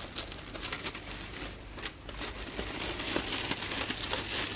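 Plastic packaging crinkling and rustling as it is handled: a dense crackle that grows busier about two seconds in.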